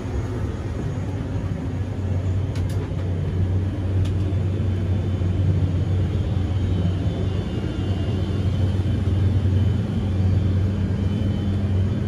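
Steady low engine rumble, with a few faint clicks about two and a half and four seconds in.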